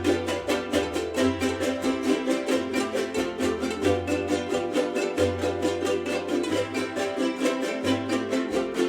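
Son jarocho music: a jarana strummed in a quick, even rhythm over a deep bass line that moves every second or so.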